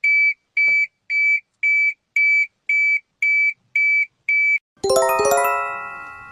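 Electronic alarm beeping: nine short, high-pitched beeps, nearly two a second. About a second and a half from the end, a quick run of ringing, chime-like electronic tones sounds and slowly fades.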